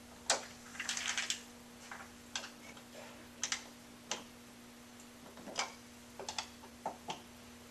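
Irregular clicks and short scrapes from an office chair's armrests being tightened by hand, their fasteners given a twist.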